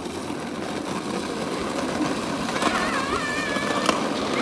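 Small hard wheels of a child's plastic ride-on seat rolling and grinding steadily over concrete as a dog tows it. A high, wavering call comes in a little before the three-second mark and lasts about a second, with a sharp click soon after.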